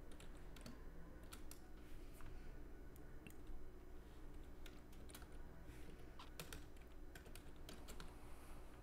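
Typing on a computer keyboard: faint, irregular key clicks, some in quick clusters and with short gaps between them, as a number is entered.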